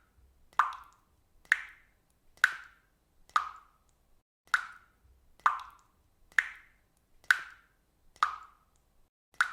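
Water dripping at a steady rate of about one drop a second, each drop a short, sharp hit that dies away quickly.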